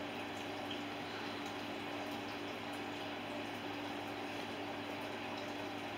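Steady background hum and hiss with a constant low tone, unchanging throughout.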